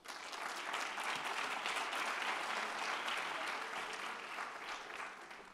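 An audience applauding. The clapping starts all at once, holds steady, then dies away near the end.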